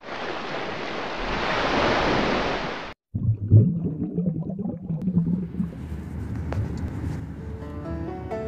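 Intro sound effect: a surf-like whoosh that swells for about three seconds and cuts off abruptly. It is followed by an uneven low rumble, with the first pitched notes of music coming in near the end.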